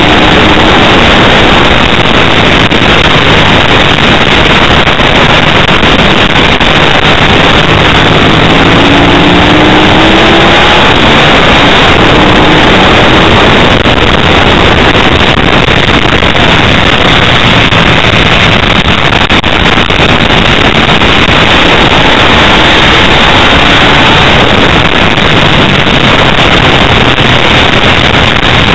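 A Ducati 888's V-twin racing engine at speed, heard from an onboard camera as a dense roar of engine and wind rushing over the microphone, near full level and distorted. The engine's pitch faintly rises and falls under the roar.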